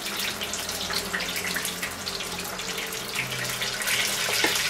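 Hot oil steadily bubbling and crackling in an electric deep fryer (Tefal Oleoclean) while a batch of spring rolls fries, with a faint steady low hum beneath.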